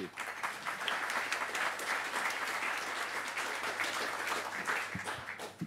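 Audience applauding a speaker who has just been introduced, the clapping tapering off near the end.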